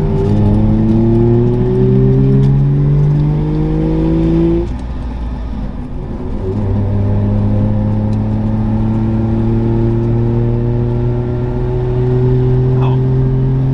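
Two-stroke three-cylinder Saab engine heard from inside the car. It rises in pitch as it accelerates through a gear, drops away for a gear change a little under five seconds in, then pulls again in the higher gear with a slowly rising note.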